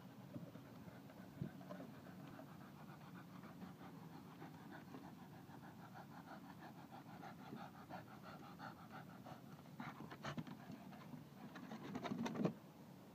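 Scottish terrier panting in a quick, steady rhythm after running for a thrown ball, louder and heavier towards the end. A single knock about one and a half seconds in.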